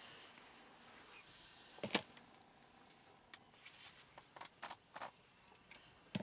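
Quiet background hiss with one sharp click about two seconds in, then several softer short ticks and rustles.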